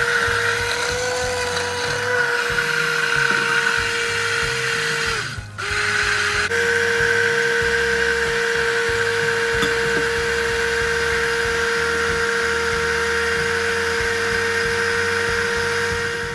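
Hand-held immersion blender running steadily in a tall plastic beaker, emulsifying oil and clam cooking liquid into mayonnaise. About five seconds in it cuts out for a moment, comes back at a lower pitch, then returns to full speed.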